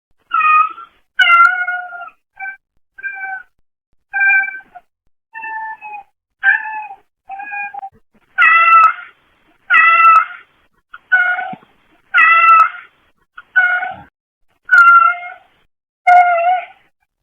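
A brown tabby domestic cat meowing over and over, about fifteen separate meows roughly a second apart, getting louder about halfway through. It is heard through a pet camera's microphone, so the sound is rough.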